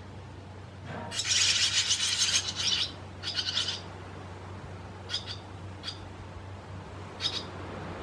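Young barn swallows calling: a loud burst of high, rapid twittering chatter starting about a second in and lasting nearly two seconds, a shorter burst right after, then a few single short calls.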